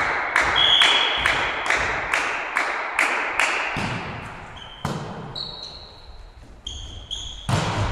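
Sharp strokes in a steady rhythm, a little over two a second, ringing in a large gym hall, stop a little under four seconds in. Then a volleyball is struck twice during a rally, about a second in after the rhythm stops and again near the end, with short high squeaks of shoes on the wooden court.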